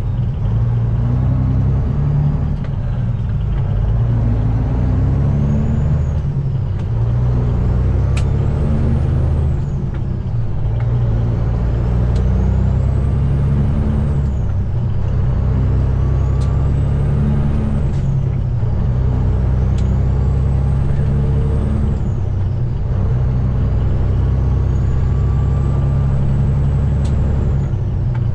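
Peterbilt 389's Cat C15 diesel truck engine pulling hard, its note climbing and dropping back about five times as it works up through the 13-speed's gears. A high whistle rises and falls with each pull.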